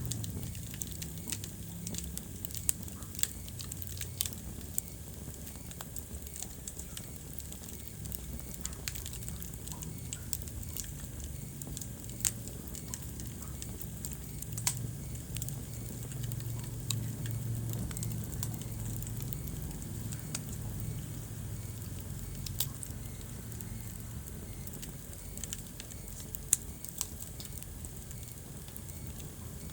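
Wood fire crackling in a fireplace: irregular sharp pops and snaps, some louder than others, over a steady low rumble of the burning.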